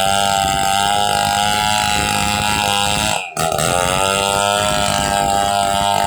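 Chainsaw engine running steadily at high revs. Its level and pitch dip briefly about three seconds in, then recover.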